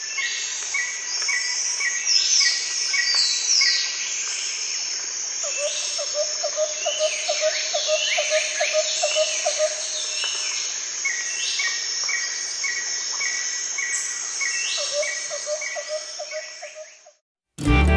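Nature ambience: several birds calling (runs of short repeated chirps and quick falling whistles) over a steady insect chorus, with a lower rapid pulsed trill twice. It fades out near the end.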